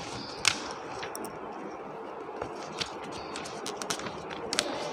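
Paper rustling and scattered light clicks as a paperback textbook's pages are handled and turned, over a steady room hiss.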